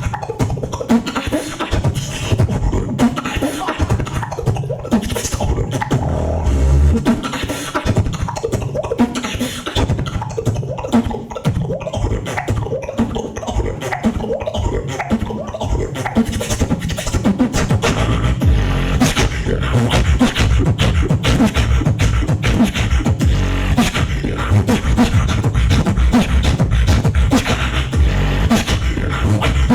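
A beatboxer performing a battle routine: vocal bass lines under rapid mouth-made kick, snare and hi-hat hits in a steady groove, getting louder about two-thirds of the way through.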